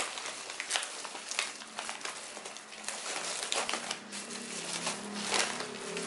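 Plastic grocery packaging crinkling and rustling in the hands, an irregular crackle of wrappers being handled and set down.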